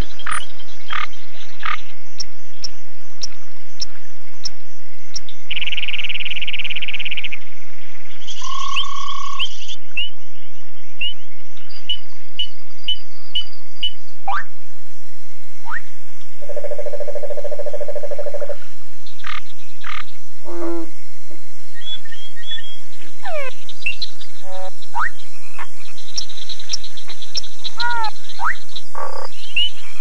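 Male frogs calling to advertise for mates, several kinds in turn: many short rising and falling chirps, a rapid trill lasting a couple of seconds, a clear steady note, and a low pulsed croak about halfway through.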